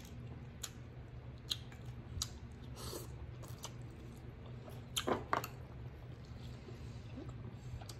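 Chewing of king crab meat, with scattered soft clicks and wet squishes as meat is picked out of the crab shell.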